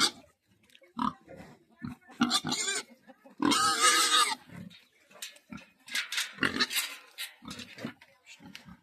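A pig squealing in a string of short, loud cries, the longest about a second long, some three and a half seconds in.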